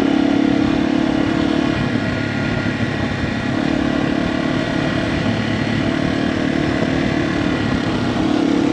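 Yamaha TW200's single-cylinder four-stroke engine running as the bike rides along a trail, its note easing off twice and picking back up in between.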